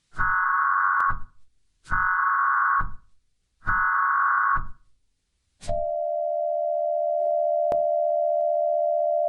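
Emergency Alert System header: three bursts of digital data tones, each about a second long, followed a little over halfway through by a single steady attention tone that holds.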